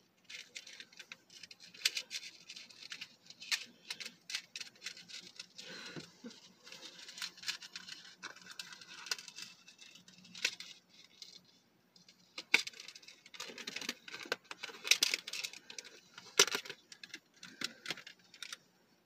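Small metal keychain and key clinking and rattling in the hands while a stuck rubber piece is worked loose from it: irregular light clicks and rustles.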